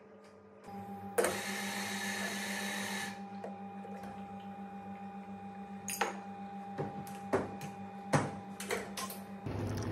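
Espresso machine and grinder at work behind a café counter: a steady machine hum starts about a second in, with a two-second burst of loud hissing early on. Several sharp metal clanks follow from the portafilter and tools being handled.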